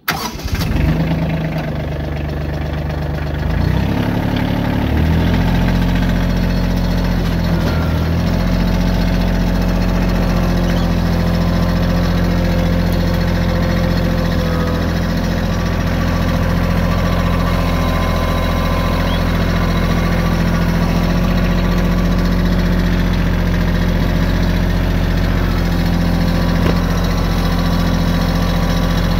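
Compact tractor engine starting on the key and running; about four seconds in it is throttled up, then holds a steady pitch as the tractor drives along.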